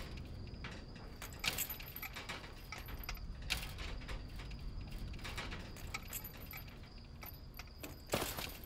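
Chain-link fence rattling and clinking as people climb over it, with louder rattles about a second and a half in, about three and a half seconds in, and near the end. A faint steady high chirring of crickets runs underneath.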